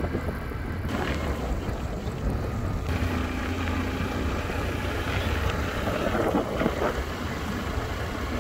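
Wind buffeting the microphone on a moving vehicle, over a steady low engine and road rumble.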